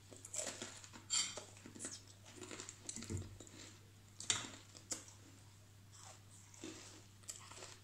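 Crackers being chewed and crunched, with scattered short crunches and clicks as pieces are broken off on a plate, over a faint steady low hum.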